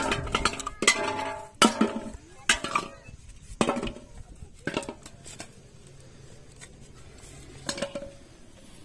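Empty plastic soft-drink bottles dropped one by one into a large metal basin, each landing with a clattering knock and a short metallic ring. The knocks come quickly at first, thin out after about five seconds, and one more comes near the end.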